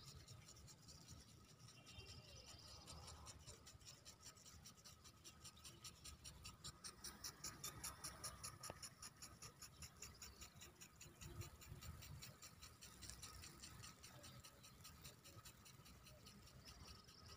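Impact sprinkler watering a grass pitch: a faint, quick, rhythmic ticking of the sprinkler arm striking the water jet, about three to four ticks a second, loudest about halfway through.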